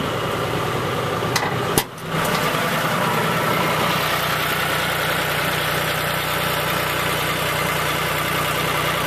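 Tractor engine running steadily while pulling a roller crimper across a field. A sharp click and a brief drop in level come about two seconds in.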